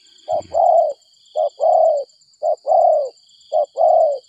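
Spotted dove cooing: four two-part phrases, each a short note followed by a longer note that falls at its end, repeated about once a second.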